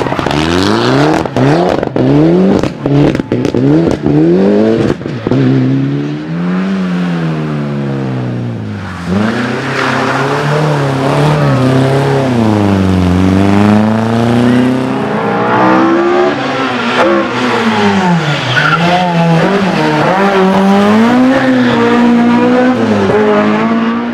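Rally car engines revving hard, their pitch climbing and falling again and again through gear changes, as several cars pass one after another. Over the first few seconds, sharp cracks break into the engine note.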